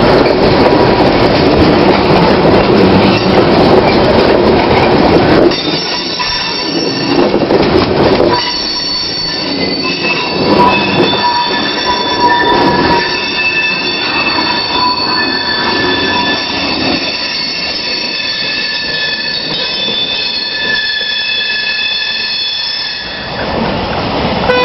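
Freight train of tank cars rolling past on jointed track: a loud, even rumble of wheels for about the first five seconds. After that the wheels squeal with several high, wavering tones that run on while the rumble drops away.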